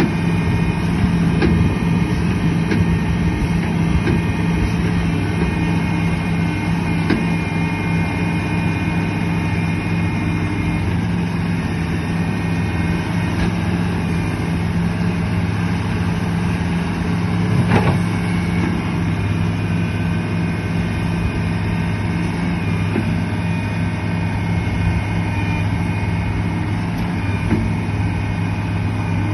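Caterpillar excavator's diesel engine running steadily at a constant speed, with a single sharp knock about eighteen seconds in.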